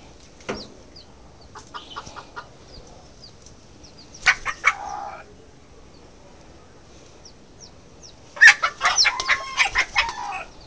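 A chicken clucking and squawking while being handled, with a loud, rapid run of squawks about eight and a half seconds in and a shorter cluster about four seconds in.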